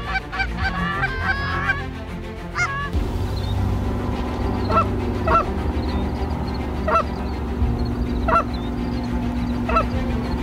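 Canada geese honking: a dense overlapping chorus of honks for the first few seconds, then single honks spaced about a second apart over a steady low hum.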